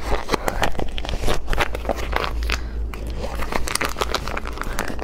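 A plastic snack pouch crinkling and crackling in the hands as it is torn open, a dense run of sharp crackles.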